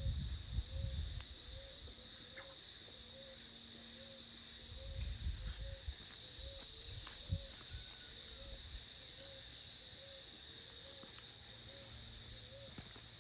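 Insects trilling steadily in a continuous high drone, with a soft low note repeating about twice a second under it and a little low rumble.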